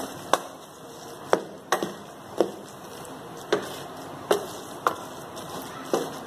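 A wooden spatula knocks against a non-stick cooking pot about eight times, at an uneven pace, as it beats and mashes a thick mixture of boiled meat and lentils. This is the mashing stage of making shami kabab, which blends the meat and lentils into one paste.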